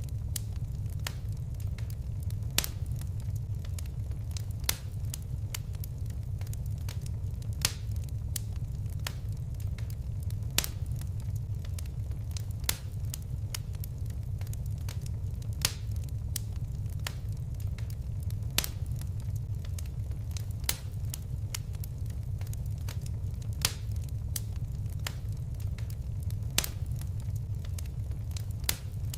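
Fireplace crackling: a steady low rumble of burning flames with scattered small crackles, and a sharp pop every two to three seconds.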